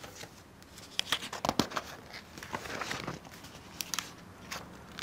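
Paper sheets and ring-bound booklets being handled and shuffled on a tabletop: irregular rustling and crinkling, busiest between about one and two seconds in, with a few more rustles near the end.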